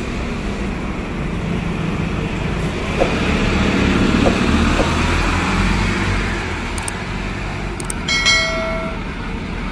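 Scania K230UB city bus running, a steady low engine and road rumble, with a few light clicks about halfway through. Near the end comes a short electronic chime lasting under a second.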